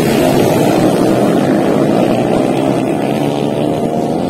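Several four-valve underbone motorcycles racing on a mud track. Their small single-cylinder engines run hard together, the overlapping engine notes wavering up and down in pitch as the riders rev.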